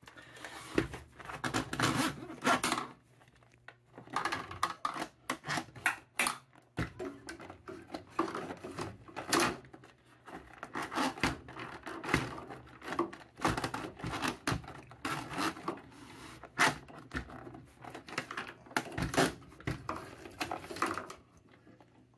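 Coiled steel cable of a 1/4-inch drain snake being pushed down a floor drain, rattling and scraping against the pipe in quick, irregular bursts as it works into a clog.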